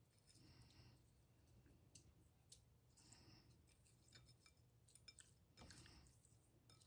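Faint wet squelching of hands tossing raw scallop meat in a glass bowl, with a few small clicks.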